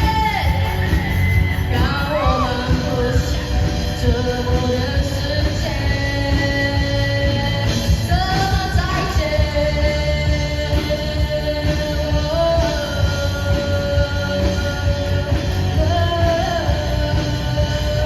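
A pop-rock song performed by a band, with a lead singer holding long notes over steady drums, bass and guitar.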